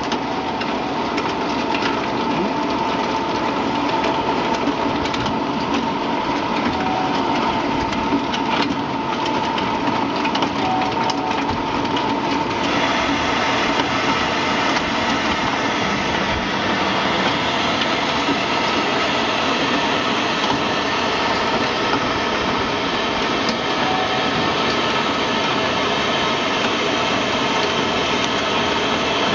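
Continuous peanut fryer running: a steady mechanical drone from its motors and moving stainless-steel mesh conveyor belts. About halfway through, a denser, higher hiss joins as peanuts come along the belt.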